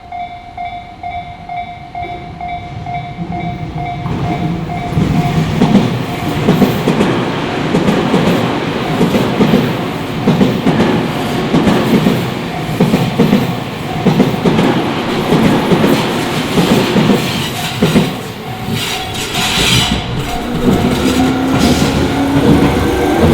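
Japanese level-crossing warning bell ringing. About four seconds in, a Tobu Tojo Line electric train passes over the crossing, its wheels clicking over the rail joints in a steady rhythm. Near the end a rising whine joins in.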